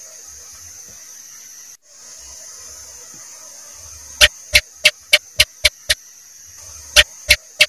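House gecko (cicak) calling: a run of seven sharp chirps starting about halfway through, about three or four a second, coming slightly faster and fainter toward the end, then a second run beginning near the end. A steady high hiss lies underneath.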